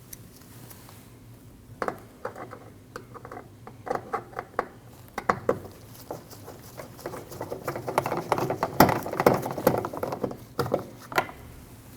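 Irregular small clicks and rattles of a T20 Torx driver and loosened screws and plastic parts at the liftgate handle as the screws are taken out, sparse at first and busiest in the second half.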